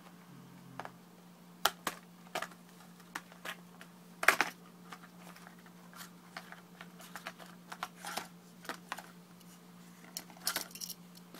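A small package being opened by hand: irregular plastic clicks, taps and crinkles, with the loudest cluster about four seconds in. A faint steady low hum runs underneath.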